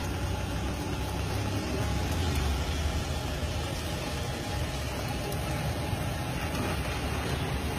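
Potato slices deep-frying in a wok of hot oil, a steady sizzle, over a low steady rumble of engines that swells slightly a couple of seconds in.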